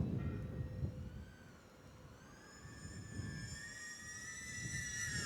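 BetaFPV Pavo20 Pro II cinewhoop's brushless motors and ducted props whining, the pitch rising slowly and getting louder over the last few seconds as the throttle comes up. A gusty low rumble of wind on the microphone is heard at first.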